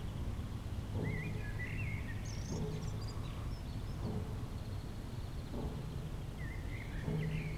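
Dull, regular knocking, one blow about every one and a half seconds, each with a short low ring. A bird chirps and trills between the blows.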